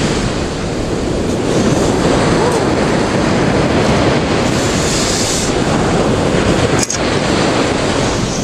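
Sea waves breaking and washing onto the shore, with wind buffeting the microphone; a short click and dropout about seven seconds in.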